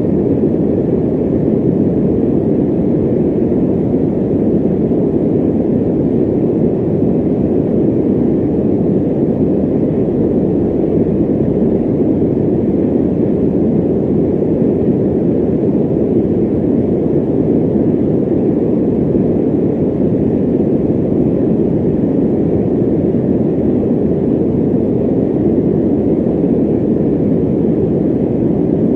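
Electric fan running steadily: an even, low whooshing noise with no tone, rhythm or change.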